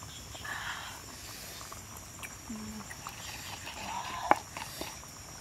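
Rural outdoor ambience with a steady high insect drone, a few faint small sounds, and one sharp tap about four seconds in.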